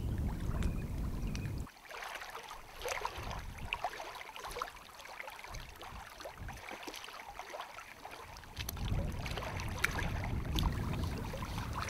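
Small waves lapping and splashing against the rocky shore of a reservoir, with scattered small ticks. A low rumble of wind on the microphone is heard at the start, drops out after about two seconds, and comes back near the end.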